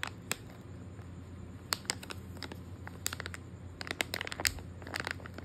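Plastic wrapping bag being handled, crinkling in scattered small crackles that come in short clusters, busiest near the end.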